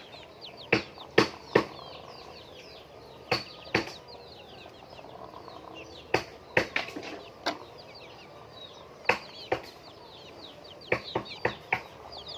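Laying hens in a coop: a constant chorus of many short, high, falling chirps, with about fifteen sharp flapping or clattering knocks scattered throughout, the loudest about a second in.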